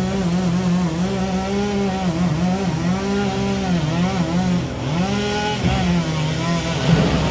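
Chainsaw cutting through an oak limb, its engine running at high revs, with the pitch dipping and recovering again and again as the saw bogs in the cut.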